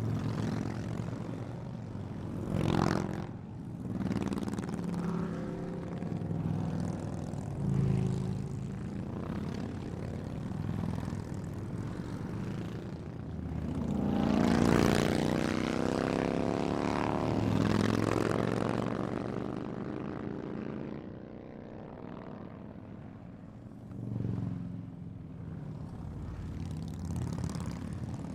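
A group of Harley-Davidson motorcycles passing by fast one after another, their V-twin engines swelling and fading as each goes by. The loudest pass comes about halfway, with the engine pitch sliding as it passes.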